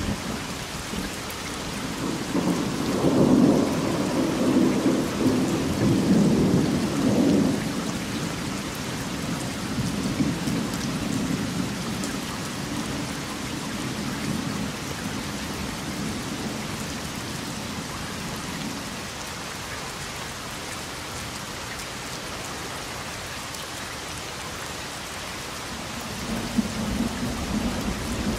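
Steady rain with rolling thunder. A long low rumble builds about two seconds in, peaks, then slowly fades over the next dozen seconds, and another rumble begins near the end.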